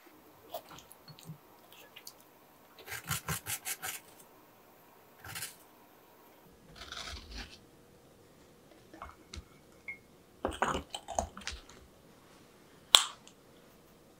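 Small wooden spoon scooping sugar from a glass jar and tapping and stirring it into a ceramic mug: a quick run of clinks about three seconds in (roughly eight a second), soft scrapes in the sugar, a cluster of taps later on, and one sharp click near the end, the loudest sound.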